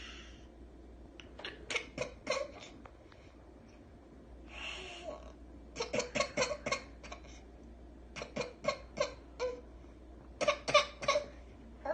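A cat coughing: a couple of wheezy, hissing breaths and four runs of quick, sharp hacking coughs, four to six hacks to a run.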